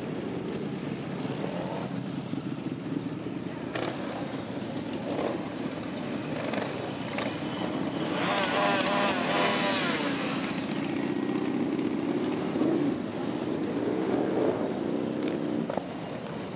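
A procession of cruiser motorcycles riding past one after another, engines running at low speed in a continuous drone. It swells in the middle as bikes pass close, and single engines rise and fall in pitch near the end.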